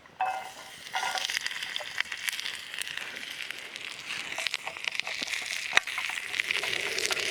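Campfire cooking: continuous crackling and sizzling with many small pops, with a couple of light metallic clinks in the first second.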